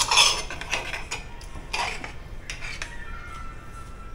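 A utensil stirring a liquid marinade in a bowl, clinking and scraping against the bowl a few times, loudest near the start and fading out toward the end.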